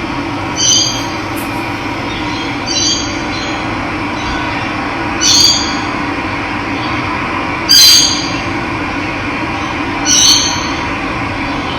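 Running water, a steady rushing hiss, with a bird giving a short, high call five times at even intervals of about two and a half seconds.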